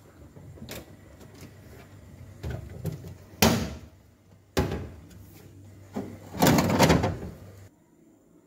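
Refrigerator's freezer compartment door opened and a plastic kulfi mould tray handled and pulled out: a few knocks, clacks and scraping rattles over a low hum. The loudest come about three and a half seconds in and again about six and a half to seven seconds in.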